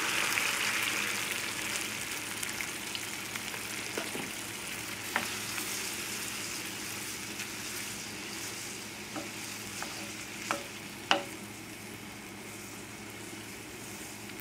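Skillet sizzling as heavy cream goes into the hot pan of chicken, mushrooms and reduced sherry, loudest at first and settling down over the first couple of seconds. Several sharp clicks sound over the sizzle, the loudest about 11 seconds in.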